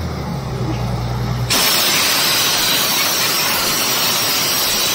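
Borewell drilling rig running with a steady engine drone. About a second and a half in, a loud, even rush of compressed air blasting dust out of the borehole starts suddenly and takes over.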